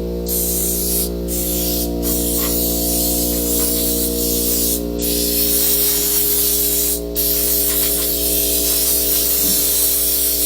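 A blower blasting air onto a mower's battery tray, a loud steady hiss that cuts out briefly about one, two, five and seven seconds in, under a steady low hum.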